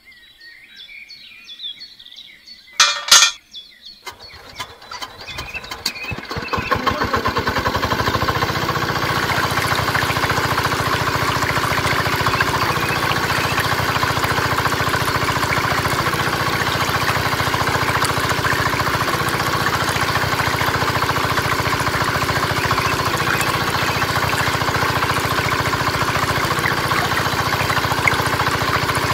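Miniature model diesel-engine water pump: a brief loud metallic clink about three seconds in, then the engine starts and, from about seven seconds, runs loud and steady with a fast even beat while it pumps water.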